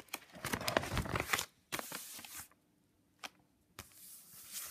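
Pages of a paper junk journal in a ring-binder folder being turned and handled: rustling and crinkling of paper and plastic in several bursts, with a single sharp click a little after halfway.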